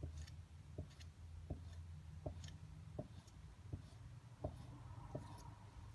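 R-Hop rubber patch being sanded by hand in short repeated passes: faint regular ticks about one every three-quarters of a second over a low steady hum.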